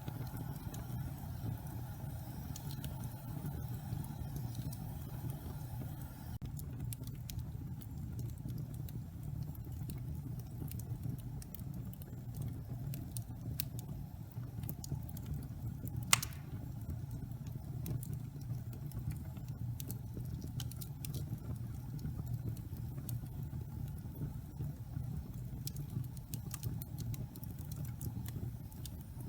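Fireplace fire burning with a steady low rumble and scattered small crackles, and one sharp, loud pop about 16 seconds in.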